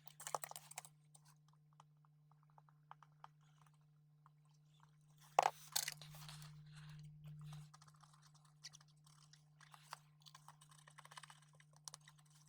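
Faint clicks and crackles of close soldering work on a circuit board, with a sharp click about five seconds in followed by a couple of seconds of crackling, over a steady low hum.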